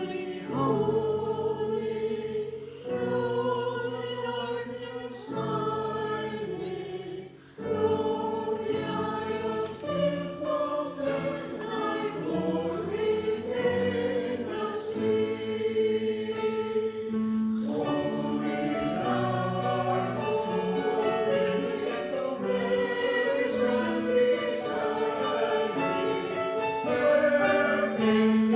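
Handbell choir ringing a piece in chords of sustained bell tones, the chords changing every second or so, with a brief break about seven seconds in.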